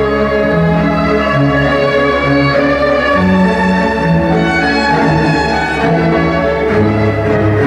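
Orchestral music, with violins and cellos playing a flowing melody in held notes.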